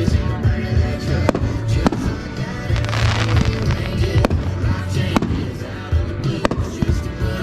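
Consumer aerial fireworks being fired one after another, with sharp reports every second or so and a hissing burst about three seconds in, over background music.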